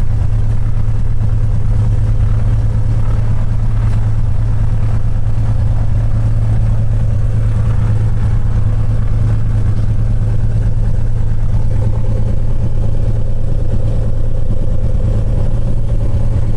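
Cessna 182's six-cylinder piston engine and propeller running steadily with no change in speed, during the pre-takeoff engine run-up.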